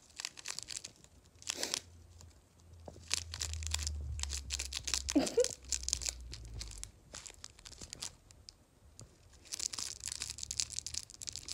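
Foil tinsel crinkle ball crackling in short irregular bursts as a pet hedgehog bites and mouths it in a person's hand.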